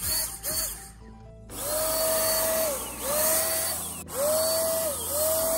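Handheld electric HVLP paint sprayer triggered in bursts: each time its motor whines up, holds, then winds down with a hiss of spraying air. A few quick bursts open, then comes a brief pause, then four longer bursts of about a second each.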